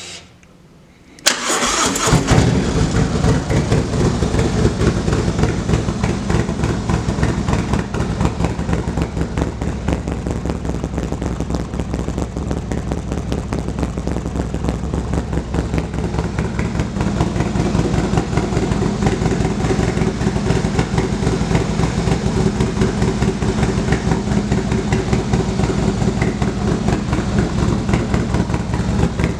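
Harley-Davidson Milwaukee-Eight 117 V-twin with a bolt-in Feuling 487 camshaft, not yet tuned, being started: the starter cranks about a second in, the engine catches and settles into a steady, throaty idle.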